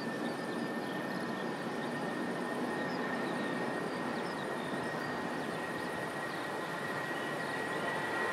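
Airbus A320 jet engines running as the airliner rolls along the runway: a steady rush of engine noise with a high whine that grows slightly stronger near the end.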